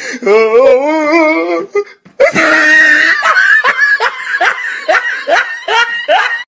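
Laughter: first a loud wavering, wobbling laugh for about a second and a half, then after a brief pause a long run of quick, rising giggles.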